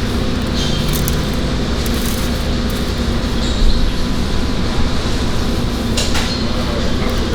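A steady, loud mechanical rumble with a faint constant hum, broken by a few brief clicks.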